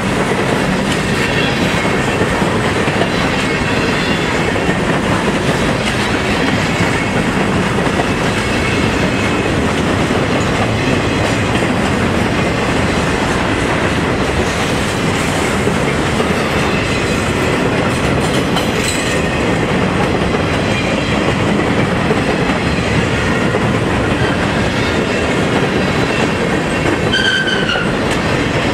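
Freight train boxcars rolling past close by: a steady, loud rumble and clatter of steel wheels on the rails, with brief high squeals from the wheels, the clearest one near the end.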